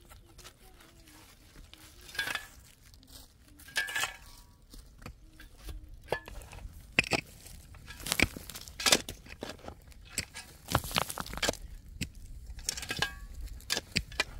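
Irregular clatter of knocks and light clinks, some with a short ring, as objects are handled and set down.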